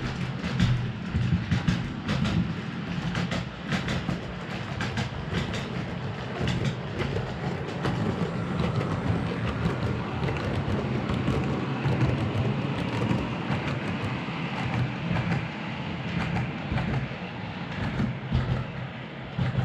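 00 gauge model train running on the track: a steady low motor hum with frequent clicking of the wheels over the rails.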